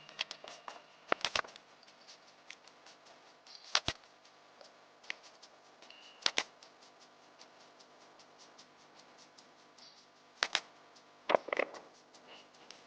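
Irregular sharp clicks and knocks, the louder ones often coming in quick pairs, over a faint steady hum.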